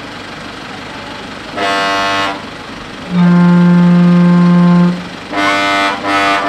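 Horn blasts at a steady pitch: one short toot, then a long, louder, lower-pitched blast, then two more short toots near the end.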